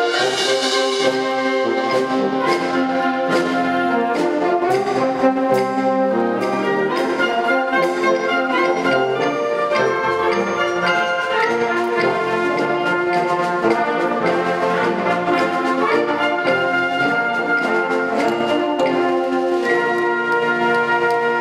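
Concert wind band playing live: flutes, clarinets and brass together in a steady, sustained passage of chords and melody.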